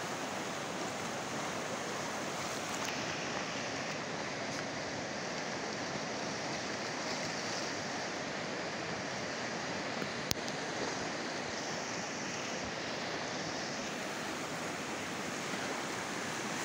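Muddy flash-flood water rushing past in a steady, unbroken wash of noise. One short click about ten seconds in.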